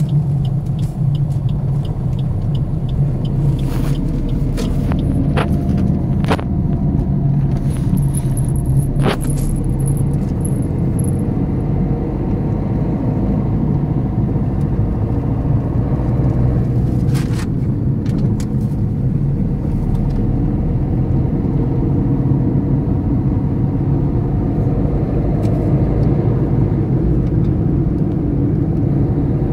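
Steady rumble inside a moving car's cabin: engine and tyres on a paved road. A few short clicks and knocks come in the first half, and a brief high chirping sounds about eight seconds in.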